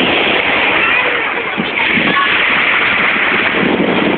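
Small waves breaking and washing up the shore in shallow water: a steady loud rush of water with no pauses.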